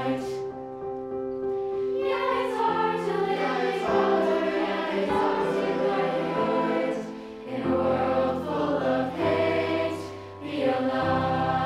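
A mixed choir singing held chords. The chords shift every second or two, and the sound dips briefly between phrases twice in the second half.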